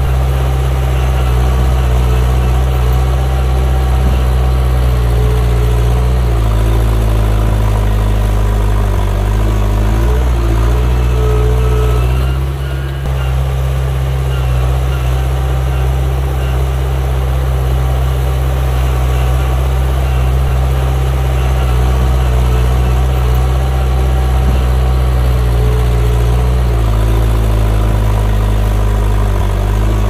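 Diesel engine of heavy earthmoving machinery running steadily at a low, even pitch. Its note shifts for a few seconds about six seconds in and again near the end, and the sound dips briefly about twelve seconds in.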